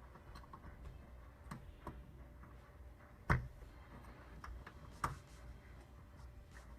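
Lock picks clicking and scraping in an apartment door's lock, faint and irregular, with two sharper knocks about three and five seconds in.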